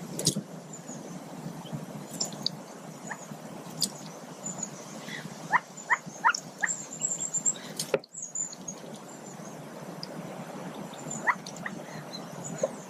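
Mallard ducklings peeping from under the brooding hen: short, high calls, several in quick succession about halfway through and a couple more near the end. Beneath them runs a steady outdoor hiss with a few sharp clicks.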